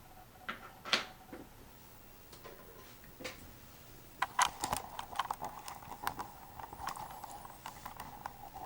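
Irregular clicks and knocks of small hard parts being handled, a few at first and then a busier run of taps from about four seconds in, over a faint steady hum.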